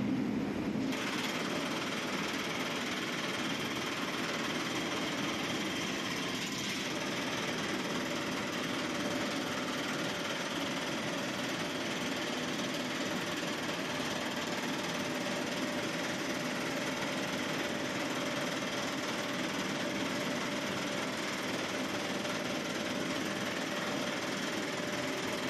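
Blast furnace taphole drilling machine running, a steady, dense rattling clatter of rapid drilling that sets in fully about a second in.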